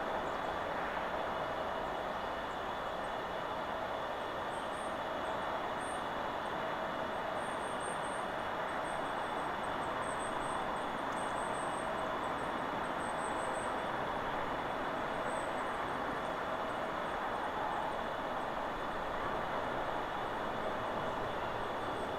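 Steady rushing of wind through forest trees, with faint, short, high-pitched chirps of small birds coming and going between about four and sixteen seconds in.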